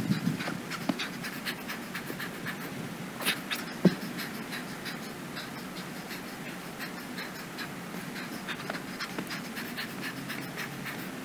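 A man's heavy, rapid panting breaths from hard exertion in a dumbbell workout, with a couple of sharp knocks a little over three seconds in.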